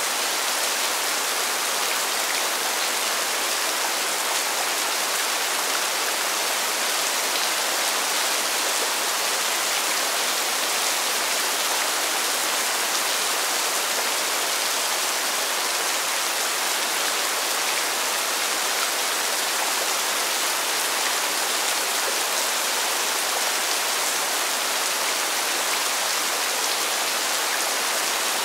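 Constant rain falling on pavement: a steady, even hiss of drops, mostly high in pitch with little low rumble, without breaks or single loud hits.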